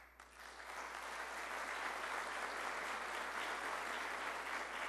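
Audience applauding, building over the first second and then holding steady.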